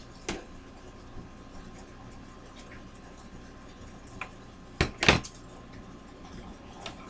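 Craft materials being handled on a tabletop: a few light clicks and clinks, then two sharp knocks close together about five seconds in.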